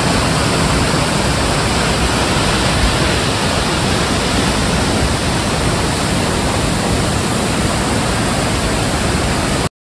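Rio Celeste waterfall pouring into its pool: a loud, steady rush of falling water that cuts off suddenly just before the end.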